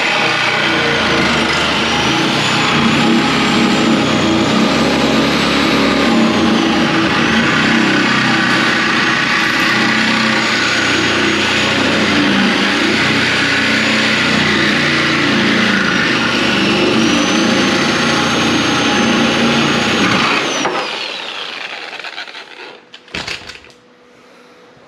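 A power cutting tool with a high whine runs under load, cutting into the car body's sheet metal. About 20 seconds in it is released and its whine falls away as it spins down, followed by a couple of sharp knocks.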